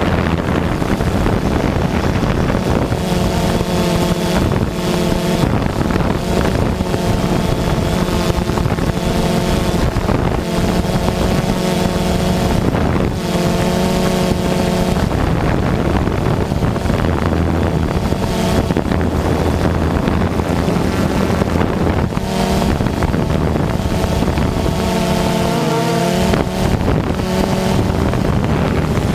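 Multirotor drone's electric motors and propellers humming, heard from the drone itself, with wind rushing over the microphone. The pitch is steady for long stretches and bends near the end as the motors change speed.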